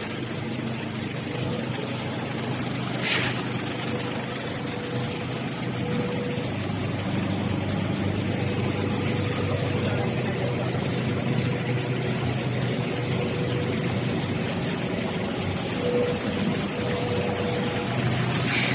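A4 paper production line machine running with a steady mechanical hum and whir, with one sharp click about three seconds in.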